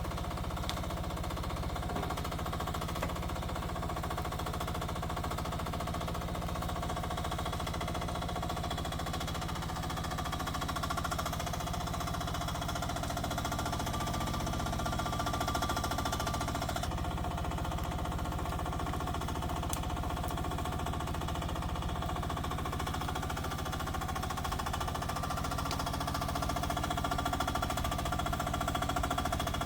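Rippa R10 mini excavator's engine running steadily with a fast, even chug, working the hydraulics as it digs.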